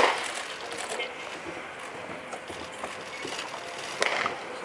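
A pitched baseball smacks into a leather catcher's mitt with a sharp pop at the start. About four seconds later the return throw slaps into the pitcher's glove. Faint background murmur throughout.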